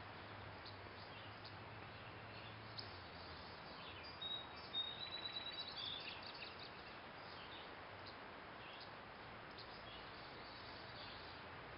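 Faint outdoor ambience: a steady hiss, with a brief run of small bird chirps and one short high whistle about four to six seconds in.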